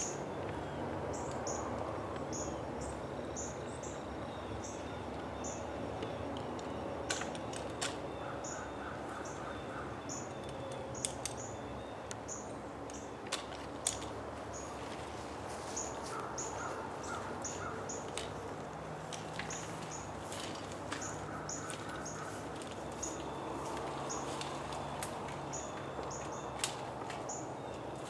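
Short high chirps repeating about once a second, over a steady low hum, with a few sharp clicks and three brief trains of rapid chirping pulses.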